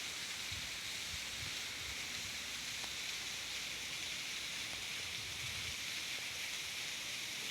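Steady rushing of water, an even hiss without change.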